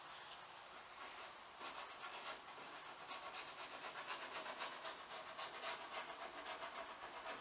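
Soft, quick, scratchy strokes of a paint brush working liquid finish stripper onto the edge of a wooden tabletop, repeating rapidly from about a second and a half in.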